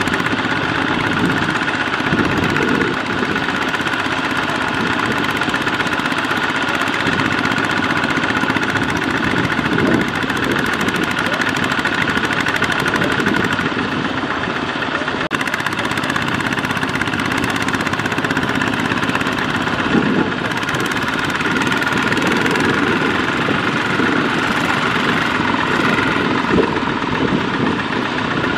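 Kubota ZT140 single-cylinder diesel engine of a two-wheel walk-behind tractor running steadily under load as it drives a loaded rice trailer through deep mud. There are a few brief louder clunks.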